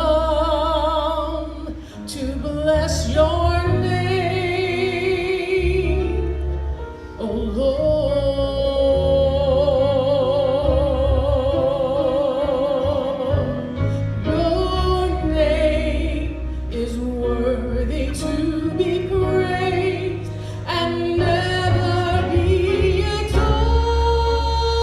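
Choir singing a slow gospel song, with wavering vibrato on long held notes over a sustained low accompaniment.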